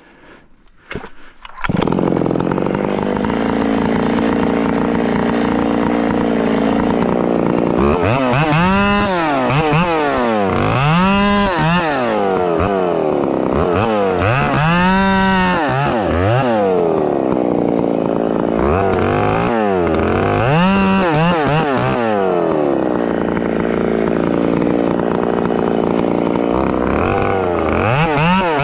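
Large Farmertec G888 (Stihl MS880-type) two-stroke chainsaw, ported, starting up about two seconds in. It runs steadily for several seconds, then revs up and down again and again in long sweeps while bucking logs into firewood rounds.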